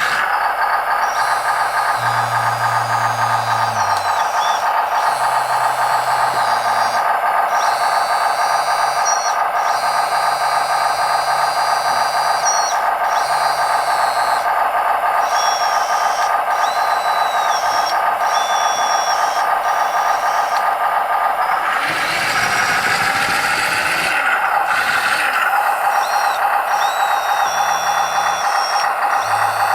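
1/12-scale D3 RC bulldozer running, a steady mechanical drone from its drive with higher squealing tones over it, changing character for a few seconds about three quarters of the way through.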